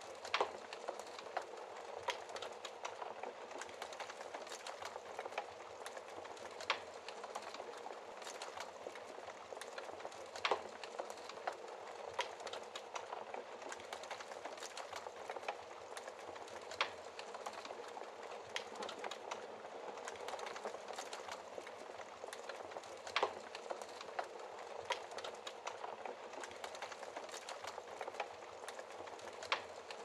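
Wood logs burning in an open fireplace: a steady crackle of small snaps, with a sharp, louder pop every few seconds.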